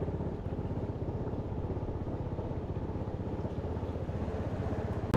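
Small motorboat's engine running steadily, loud, with a fast, even pulsing chug.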